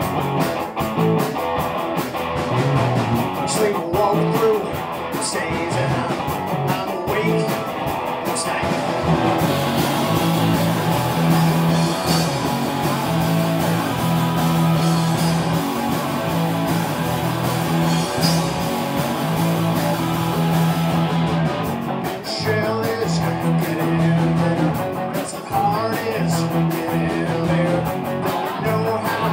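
Live rock band playing a song, with guitar to the fore.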